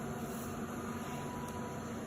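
Steady machine noise: a low, even hum under a constant hiss, like a fan running.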